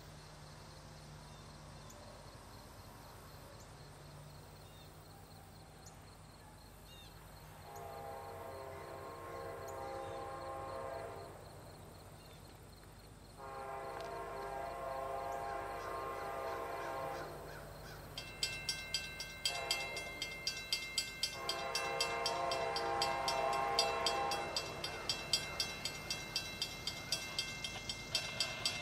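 Amtrak locomotive horn sounding the grade-crossing signal as the train approaches: two long blasts, a short one, then a final long one. From about two-thirds of the way in, the crossing's warning bell rings in rapid, even strokes as the crossing activates and the gates come down.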